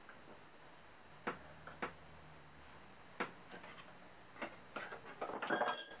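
Wooden magic props handled on a tabletop: a few separate sharp knocks and clicks, then near the end a quick clatter of wood and metal with a faint metallic ring, as a metal rod and panel are fitted to the wooden frame.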